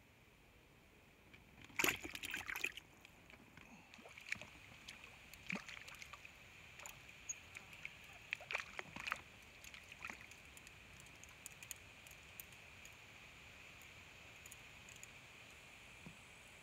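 Quiet lake-water sounds as a small fish is hooked on a float rod and played in: a short burst of splashing and knocks about two seconds in, then scattered small splashes and ticks.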